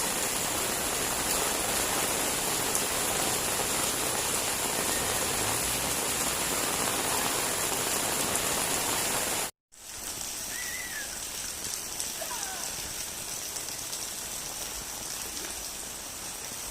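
Steady rain falling, an even hiss of water. It drops out for a split second about two thirds of the way through and then goes on a little quieter.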